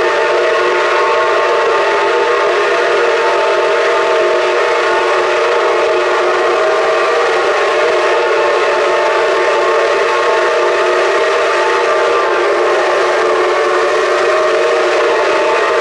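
Steam whistles of the coupled Shay and Climax geared locomotives blowing together in one long, steady chord of several tones.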